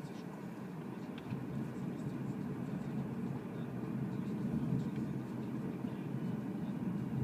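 Road and tyre noise heard inside the cabin of a Renault ZOE electric car driving along a narrow asphalt road. It is a steady low rumble with no engine sound, and it gets somewhat louder about halfway through.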